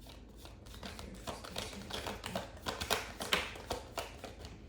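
Tarot cards being shuffled by hand: a quick, irregular run of papery snaps and clicks.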